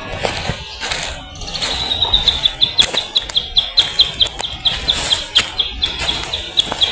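A bird calling a fast run of short, high, even-pitched notes, about five a second, starting about a second and a half in and going on steadily.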